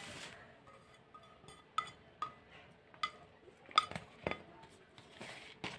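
Light clinks and knocks of a steel bowl and spoon against a plastic mixing bowl as rice is tipped and scraped in: about half a dozen scattered strikes, some with a short ring.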